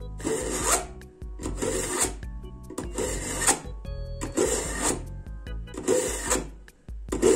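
Kitchen knife blade drawn through the coarse black stage of a Redlemon manual knife sharpener: six grinding strokes, about one every second and a half, taking down a worn, damaged edge.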